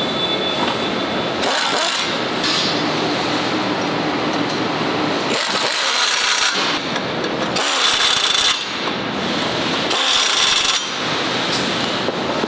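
Cordless power driver run in five short bursts of about a second each, driving in the bolts of a tractor cab's step bracket, over a steady factory-floor din.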